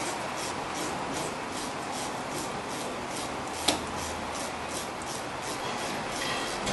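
Hand ratchet tightening the upper brake caliper slide-pin bolt, clicking in a steady rhythm of about three short runs a second as the handle is swung back and forth, with one sharper click about halfway.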